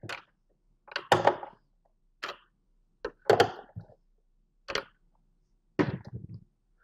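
Hand-tightening Phillips screws into a plastic enclosure lid: about six short clicks and knocks, roughly a second apart, of the screwdriver and hands working the case. The last one, near the end, is a duller knock as the screwdriver is put down on the table.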